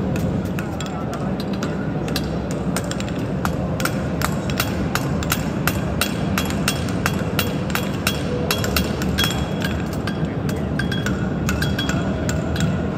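A farrier's forging hammer striking a horseshoe on an anvil, with sharp metallic blows about three a second, over the steady noise of a crowded hall.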